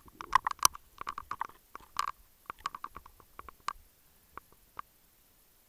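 A rapid, irregular series of small clicks and pops, crowded at first and thinning to a few scattered ones after about four seconds.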